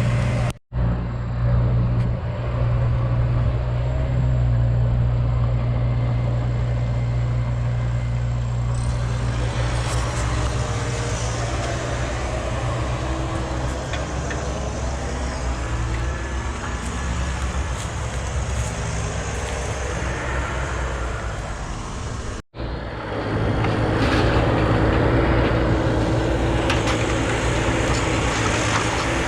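Heavy diesel machinery running steadily with a deep low hum. The sound drops out briefly twice.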